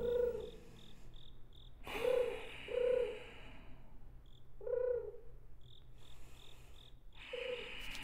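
Cricket chirping as a night ambience, short high chirps about three a second that pause now and then. A few soft, short breathy sounds come through over it.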